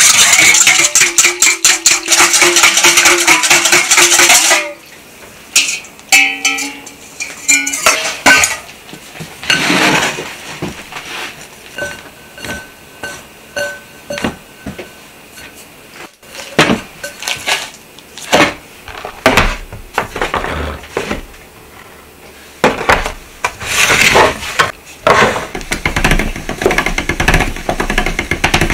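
Rapid metallic clinking for about four seconds as chopsticks stir water with kansui and salt in a stainless steel bowl. It is followed by softer scattered tapping and rustling of hands mixing noodle dough in a glass bowl, with louder clatter near the end.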